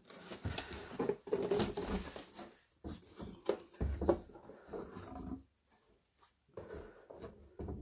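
A green cardboard box being handled and moved aside: a string of light knocks and scrapes of cardboard over a cloth-covered table, going quiet about five and a half seconds in, with a few faint handling sounds near the end.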